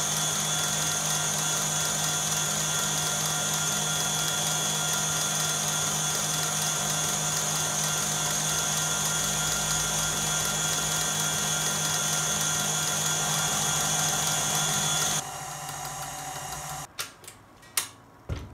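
KitchenAid stand mixer running steadily at high speed with a high whine and a low motor hum, its wire whisk beating egg whites and sugar into stiff meringue. Near the end it drops to a lower speed and stops, followed by a few sharp clicks and knocks as the tilt head is raised.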